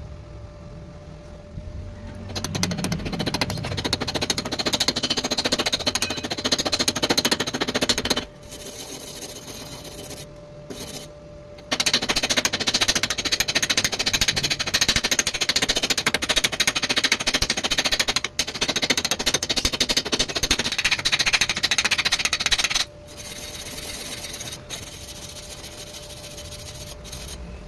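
Welding arc crackling in two long runs, about six seconds and then about eleven seconds, with a quieter pause between. Under it runs a faint steady hum.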